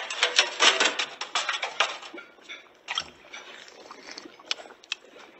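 Kitchen foley of a spoon and pot as soup is tasted: a dense clatter of utensil clinks and scrapes for about two seconds, then softer scattered clicks and small liquid sounds.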